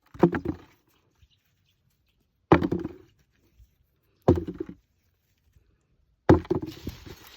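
Four bursts of quick knocks and scraping, about two seconds apart, from digging potatoes out of garden soil. The last burst trails off into rustling, like soil falling away.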